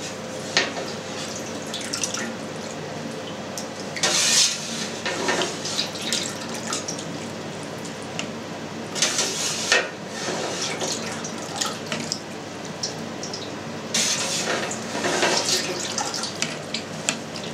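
Whey splashing and trickling as wet feta curds are scooped out of a stainless steel vat with a wooden spoon and dropped into a plastic cheese mould, the whey draining out through the mould. Louder splashy scoops come about four, nine and fifteen seconds in.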